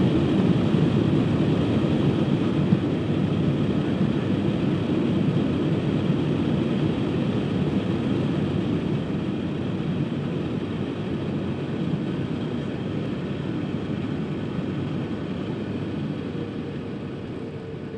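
Cabin noise of a Boeing 737-700 rolling out on the runway after landing: a steady rumble of engines and wheels that slowly fades as the aircraft slows, with a faint whine coming in near the end.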